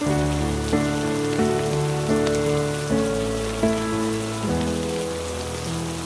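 Steady rain falling, with soft background music whose slow melodic notes come in right at the start and change about every three-quarters of a second.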